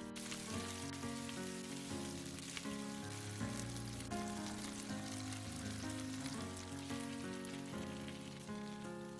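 Garlic, green onion and then starch-coated pork belly sizzling steadily in hot oil in a frying pan as they are stir-fried, over background music.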